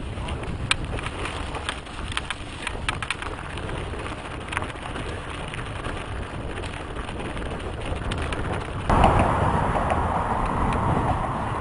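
Mountain bike rolling fast down a dirt trail: tyres crunching over dirt and gravel with scattered sharp clicks. About nine seconds in the bike comes onto pavement and a louder, steady tyre hiss takes over.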